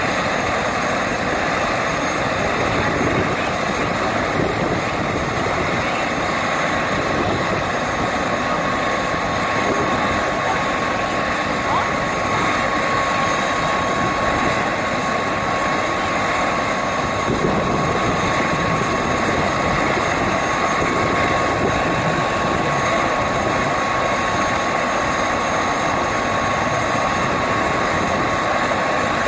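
Single-engine turbine helicopter, of the AS350 AStar type, running on the ground with its rotor turning ahead of lift-off: a steady rushing rotor and engine noise with a constant high turbine whine.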